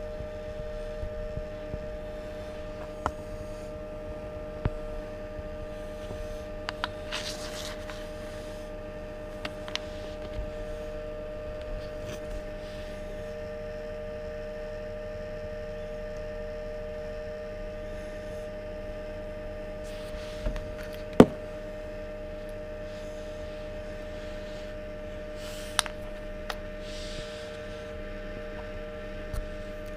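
A small egg incubator running with a steady electrical hum. A few light clicks come through it, the sharpest a little past two-thirds of the way through.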